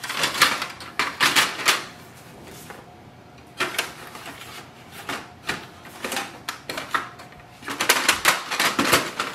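Plastic clicks and rattles from a laser printer's paper tray as its paper guides are slid into place and the tray is handled, in several short bursts with quiet gaps between them.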